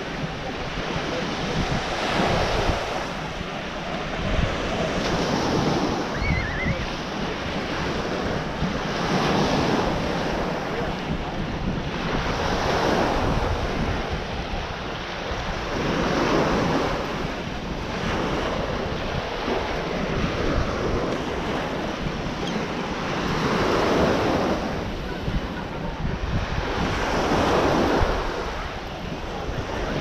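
Small ocean waves breaking on a sandy beach, the wash swelling and fading every three to four seconds, with wind buffeting the microphone.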